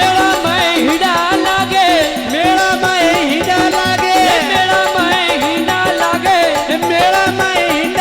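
Instrumental interlude of a Rajasthani devotional folk song: a lead melody with many pitch bends and slides over a steady, even drum beat.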